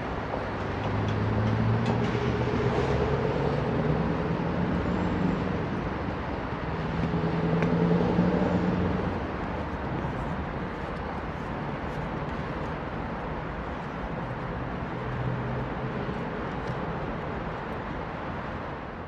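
Steady city road traffic from a busy street, with engines swelling louder as vehicles pass about two and eight seconds in.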